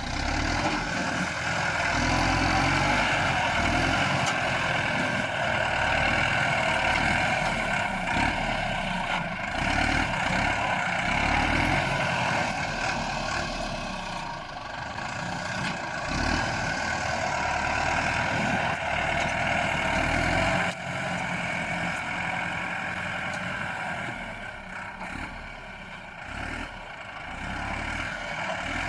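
Bulldozer's diesel engine running steadily as it pushes earth, a little quieter from about two-thirds of the way in.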